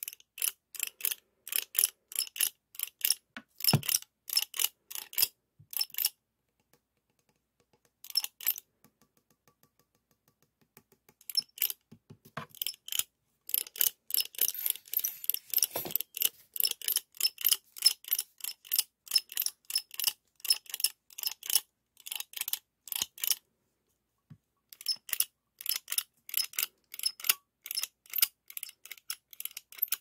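Stainless steel spring-loaded ice cream scoop clicking: its squeeze lever and geared scraper snapping and its metal bowl tapping on a hard plastic octopus-shaped massager. The clicks come a few per second in runs with short pauses, denser and more continuous for a couple of seconds in the middle.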